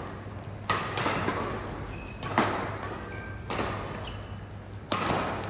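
Badminton rally: a feather or nylon shuttlecock struck back and forth by rackets four times, roughly every second and a half. Each sharp hit rings on in the echo of a large hall.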